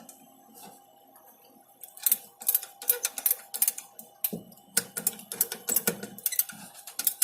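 Old 450 W power-supply fan running with a steady hum, and from about two seconds in a quick, irregular run of sharp clicks and rattles, several a second.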